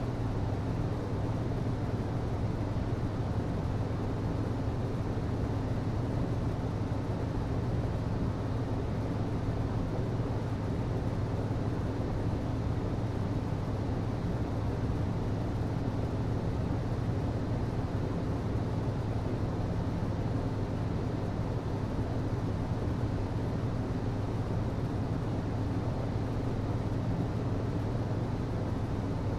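HVAC system running steadily: a constant low hum over an even rush of air noise.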